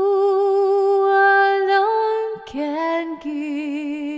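A solo voice singing a slow devotional song, holding long notes with vibrato. The line 'a joy that you can give' is heard, with 'can' sung near the end.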